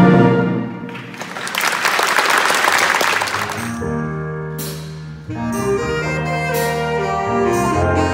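Secondary-school wind band: a held chord dies away, a short burst of applause follows, and then the band begins a new passage of sustained brass and saxophone chords, with a few light cymbal-like splashes.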